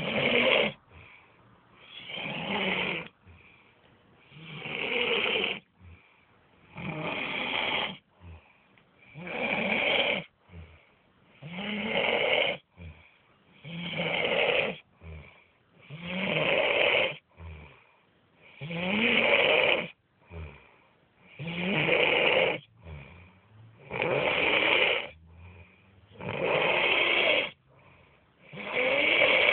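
A man snoring heavily in his sleep: a loud snore about every two and a half seconds, each about a second long, with a shorter, quieter breath sound between snores.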